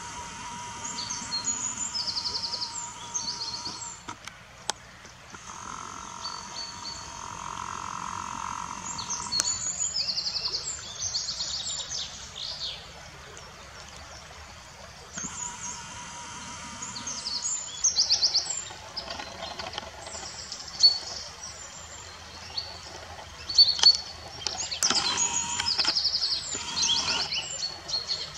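Running river water with repeated high-pitched chirps and quick trills, and a few sharp clicks about two-thirds of the way in.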